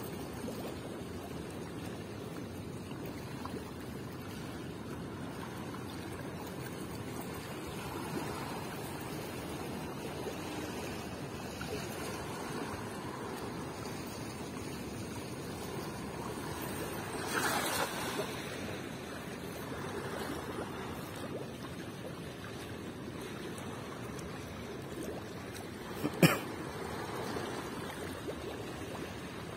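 Steady rush of a fast-flowing river against a concrete bank, with a short splash a little past halfway through as a cast net lands on the water. A single sharp knock sounds near the end.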